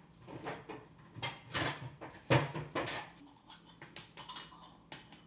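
Irregular knocks, clinks and scrapes of kitchen utensils and small glasses as the panna cotta is shared out into the glasses, the sharpest knock about two seconds in.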